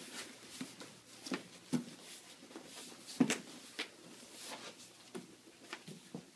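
Cardboard cremation container being folded together by hand: irregular light knocks, taps and rubs as the panels and end tabs are pressed into place, the sharpest knock about three seconds in.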